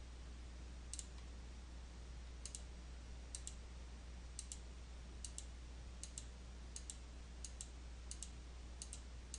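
Computer mouse clicking, a short click or quick double click about once a second, about ten in all, over a faint steady low hum.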